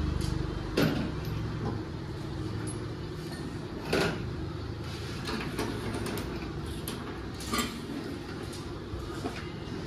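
Hand tools being handled, with a few short knocks and clicks over a steady low background hum.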